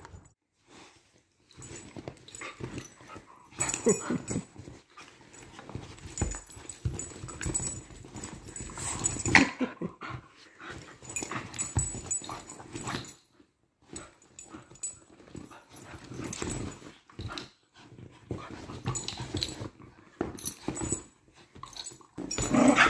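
Two small dogs, a jackapoo and a jackchi, play-fighting on a leather sofa: growls and scuffling come in irregular bursts with short pauses between.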